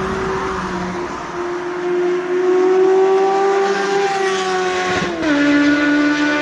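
Kawasaki Z750's inline-four engine running through a Roads Italia Doublefire aftermarket exhaust. The note holds steady and creeps slightly higher, then drops sharply about five seconds in and settles at a lower steady pitch.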